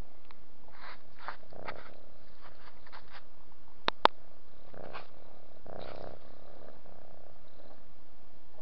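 Domestic cat purring close to the microphone in uneven breathy pulses, with two sharp clicks close together about four seconds in.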